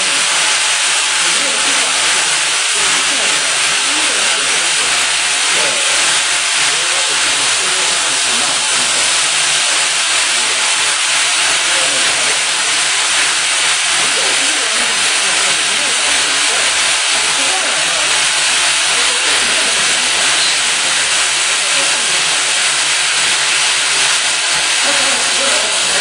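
Steady, even hiss from a friction stir welding machine as its spinning tool travels along the seam in an aluminium plate.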